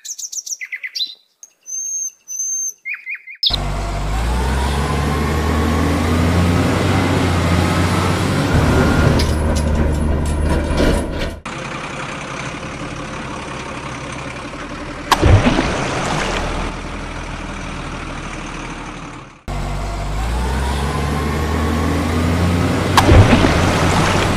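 Short chirping tones, then a truck engine sound effect running steadily, dubbed over plastic toy trucks. The sound changes partway through, comes back with a rising whine like a rev, and is broken by two sharp loud hits.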